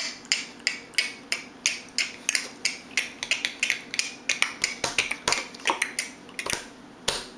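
A run of sharp taps and clicks from hard objects striking one another, such as tableware at a baby's feeding, about three a second and coming faster in the middle.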